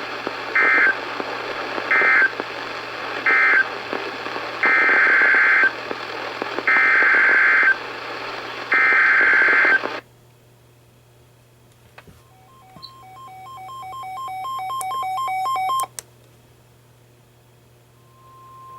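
NOAA Weather Radio over a hissy signal: three short SAME data bursts (the end-of-message code), then three longer SAME header bursts, all harsh high-pitched warbling screeches. The hiss cuts off about ten seconds in. A run of electronic beeps from the weather radio receiver follows, growing louder, and near the end a steady warning alarm tone begins to sound.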